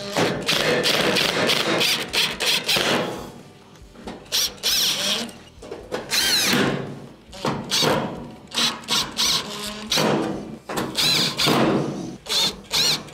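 Cordless drill/driver running in a series of short bursts with a rising and falling whine, driving Phillips screws back into the steel rear panel of a gas range.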